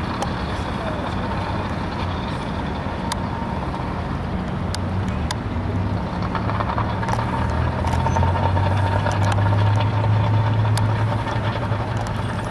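Street traffic: motor vehicle engines running close by, with a low engine hum that grows louder about halfway through, and a few sharp clicks.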